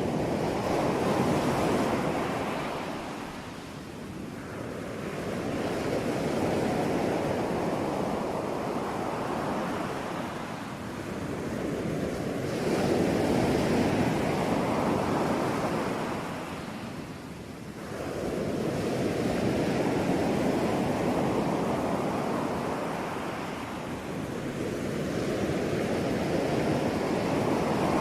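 Ocean surf: waves breaking and washing ashore in a steady rush that swells and fades about every six to seven seconds.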